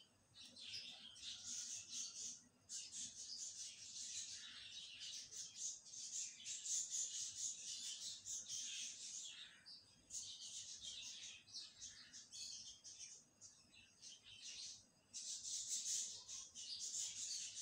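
Birds chirping: many quick overlapping high chirps, faint, with brief lulls.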